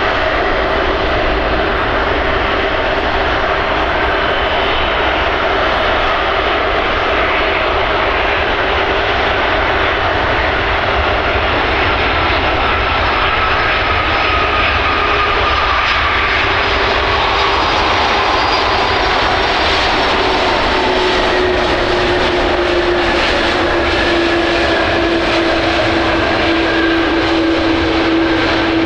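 Airbus Beluga A300-600ST transport jet flying past on its arrival, its two General Electric CF6-80C2 turbofans loud and steady, with engine tones that fall slowly in pitch as it passes.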